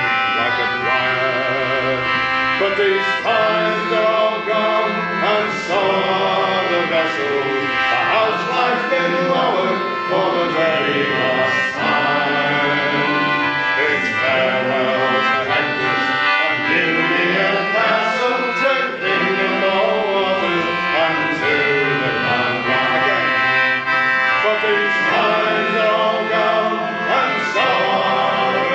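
Men's shanty group singing a sea song together, with steady sustained instrumental notes beneath the voices.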